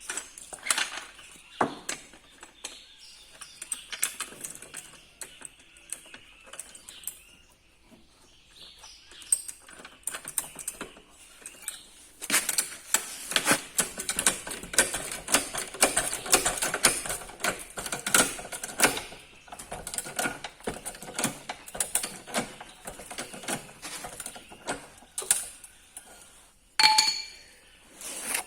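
Car jack being worked to raise the car: a long run of rapid metallic clicking and rattling after a stretch of scattered handling clicks, with one sharp ringing metal clink near the end.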